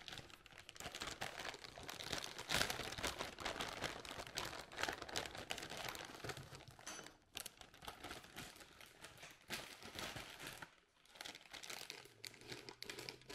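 Packaging being handled and crumpled: an irregular, continuous crinkling and rustling, with a brief lull about eleven seconds in.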